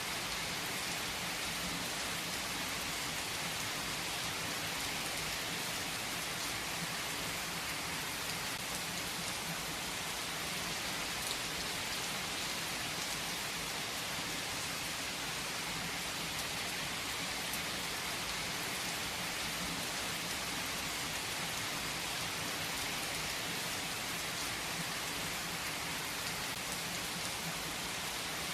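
Steady rain falling on a surface: an even, unbroken hiss with scattered drop ticks, holding the same level throughout.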